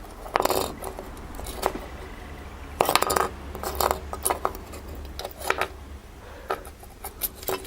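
Thin steel engine bearing shells clinking and rattling as they are handled: a series of light, separate metallic clicks over a low steady hum.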